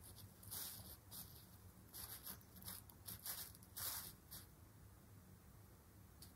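Thin synthetic cloth rustling in a series of short bursts as a twine cord is dragged underneath it; the rustling stops about four and a half seconds in.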